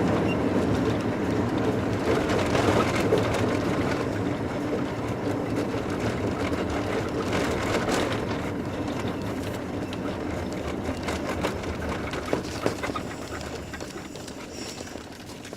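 Road and engine noise heard from inside a moving car, a steady rumble with scattered knocks and rattles from bumps, fading over the last few seconds as the car slows.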